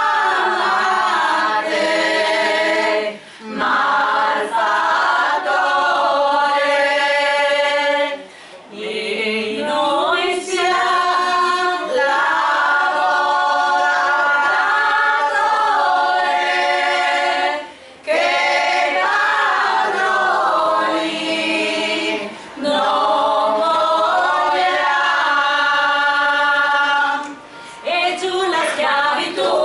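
A women's choir of about eight voices singing a cappella, in long sustained phrases with a short breath pause every few seconds.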